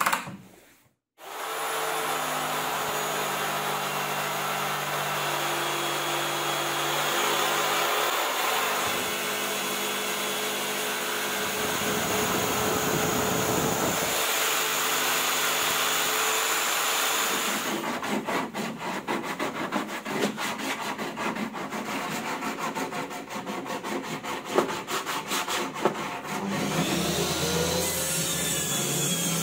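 Power tools cutting plywood, starting about a second in: an electric jigsaw runs through the board with a rough, chattering cut, and near the end a table saw hums as it cuts a plywood sheet.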